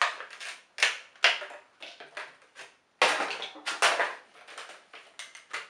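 Clear plastic blister packaging crackling and crinkling as it is pulled open by hand, in irregular bursts with sharper snaps about a second in and around the middle.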